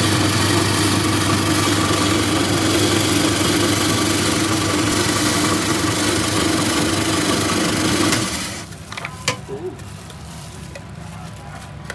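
Ice-shaving machine running, its motor humming steadily while it shaves ice into a bowl. It switches off about eight seconds in, and a few light clicks and knocks follow.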